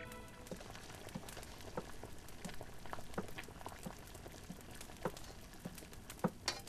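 A stove's cooking fire crackling: faint, irregular small pops and ticks, a few louder ones near the end.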